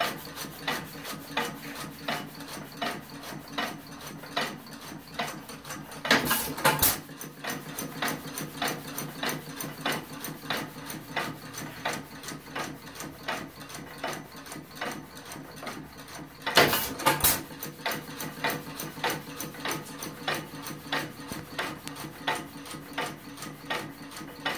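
New Holland 1 1/2 horsepower hit-and-miss engine running, its flywheels coasting with a steady rapid clicking of about four ticks a second. Twice, about six seconds in and again some ten seconds later, it fires a short burst of a few sharp bangs, the loudest sounds, as the governor lets it take a charge when speed drops.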